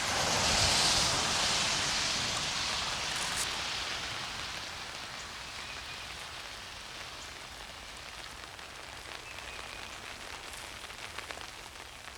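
Rain falling steadily, an even hiss that is louder for the first three seconds or so and then eases off.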